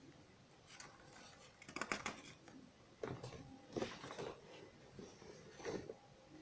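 Writing on paper: several short scratching strokes a second or so apart.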